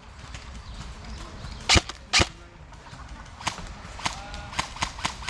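Airsoft gun firing two sharp shots about half a second apart, followed by a scatter of fainter shot cracks and clicks.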